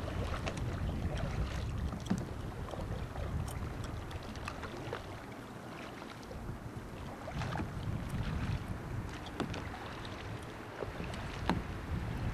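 Wind rumbling on the microphone, with irregular light splashes from a double-bladed kayak paddle dipping into the water.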